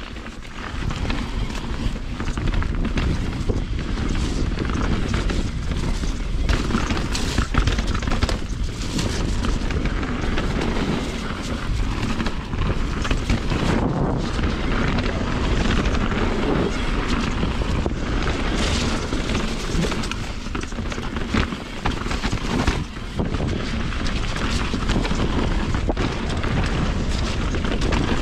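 Mountain bike (a 2020 Rocky Mountain Instinct BC) riding downhill on a wet trail: wind buffeting the camera microphone, tyres rolling over dirt and rocks, and frequent knocks and rattles from the bike, picking up about a second in.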